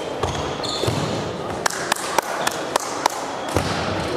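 Badminton rally: a quick run of about six sharp racket-on-shuttlecock hits in the middle, with dull thuds of players' footfalls on the wooden court floor.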